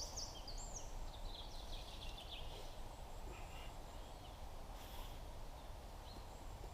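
Small birds singing in short, high, warbling phrases, busiest in the first few seconds, over a steady low background hiss.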